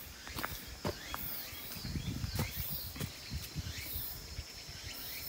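Insects chirping in a high, repeating pulse about once a second, with footsteps on a leaf-covered dirt path during the first few seconds.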